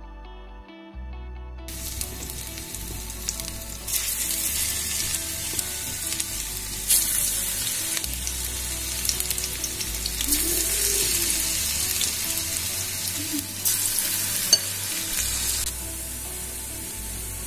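Battered bitter gourd slices sizzling as they deep-fry in hot oil in a stainless steel pan. The sizzle starts about two seconds in, swells several times as more slices go into the oil, and eases a little near the end.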